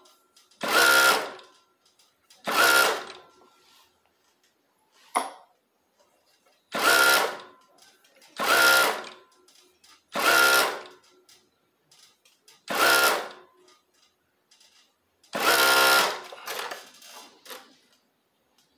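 Coverstitch machine running in seven short bursts of about half a second to a second each, with quiet pauses between them, as it stitches a wide hem. There is one short sharp click about five seconds in.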